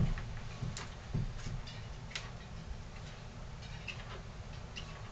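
Handling sounds from a Homelite two-stroke leaf blower that is not running: a knock right at the start, a soft thud about a second in, then faint scattered ticks.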